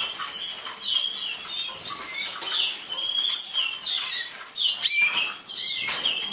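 Several canaries chirping and calling, many short notes sliding up and down in pitch, with a few sharp clicks among them.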